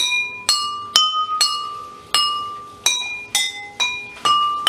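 A pencil tapping four water-filled drinking glasses in a slow beat, each glass ringing at its own pitch set by its water level. About nine strikes come at roughly two a second, each note ringing and fading before the next.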